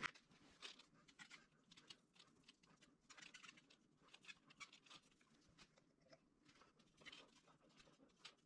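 Near silence, with faint, irregular small ticks and rustles of handwork.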